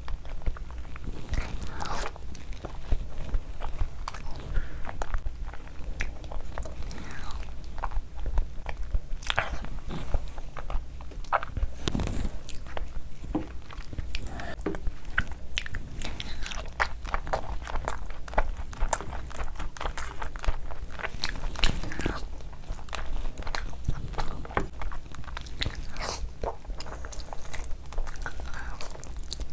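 Close-miked eating: a person chewing and biting into curried chicken and fufu, with wet smacking and squelching of fingers in the thick curry gravy, many small irregular clicks throughout.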